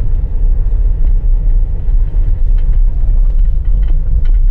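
Car cabin noise while driving over a rough dirt road: a steady low rumble from the tyres and suspension, with a few light knocks and rattles in the second half.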